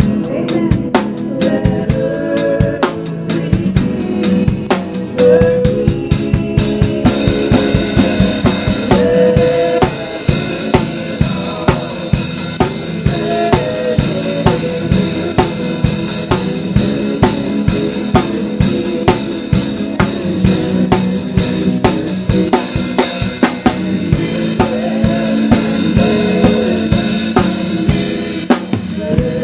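Drum kit playing a steady, busy beat of snare and bass drum under sustained band chords in a live worship song. Cymbals come in about seven seconds in and drop out shortly before the end.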